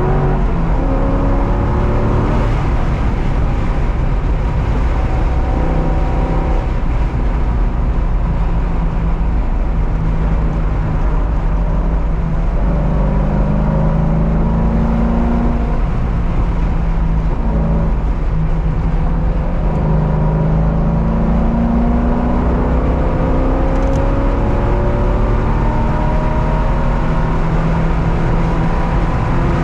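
Car engine under hard acceleration on a race track, its pitch climbing steadily in several long pulls and dropping back at each gear change, over constant road and wind noise.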